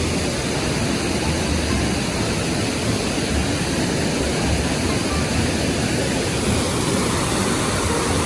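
Loud, steady rushing noise with a low rumble underneath, holding even throughout.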